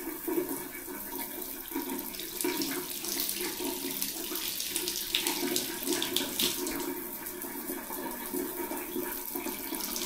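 Water running steadily from a wall-mounted shower mixer's spout and splashing over a hand held in the stream.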